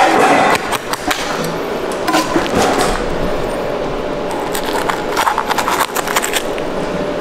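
Knife cutting and scraping along the backbone and rib bones of a bluefin tuna as the loin is worked free, a run of irregular scrapes and clicks that comes in clusters.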